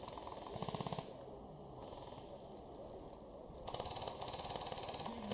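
Airsoft guns firing full-auto in the distance, a rapid rattle of shots: a short burst about half a second in and a longer burst lasting over a second near the end.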